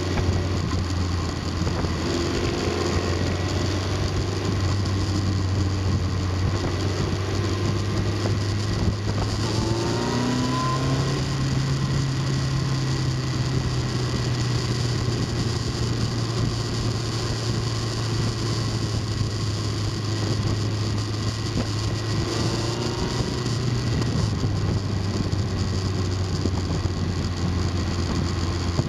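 Vehicle engine droning steadily under way, with road and wind noise. Its pitch climbs about ten seconds in as it speeds up, and settles back lower a little after twenty seconds.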